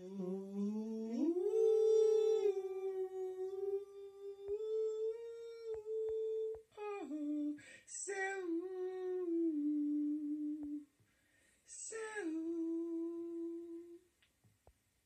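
A lone voice humming a slow wordless melody in long held notes, stepping between pitches, with short pauses between phrases. It is a home voice recording of the song played back through a phone.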